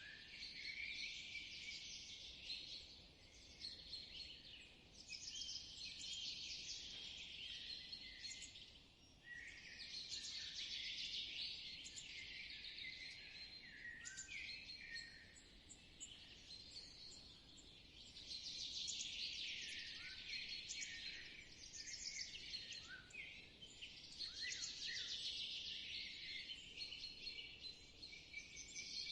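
Spring forest bird chorus: many songbirds singing at once, a dense mix of overlapping chirps and trills that swells and fades every few seconds.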